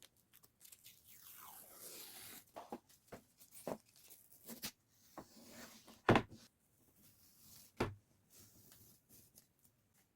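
Irregular handling noise: scattered knocks and clacks with rustling and scraping between them, the loudest knocks about six seconds in and again near eight seconds.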